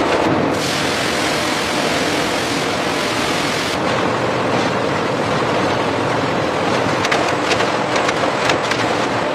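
Factory machinery running: a loud, steady noisy hiss with scattered clicks and clatter, more of them near the end.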